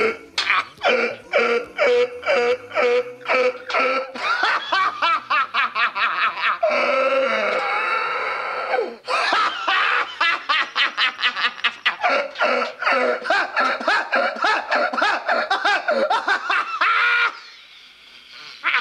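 A man's hysterical, uncontrollable laughter: rapid cackling at about four laughs a second, broken by one long held shriek of laughter in the middle, stopping a second or two before the end.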